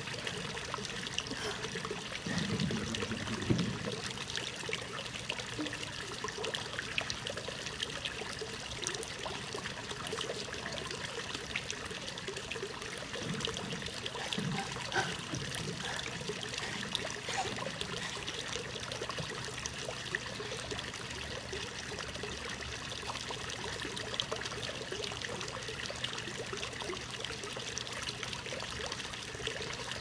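Small pond waterfall spilling steadily into a shallow pond: a continuous trickling, pouring splash of water.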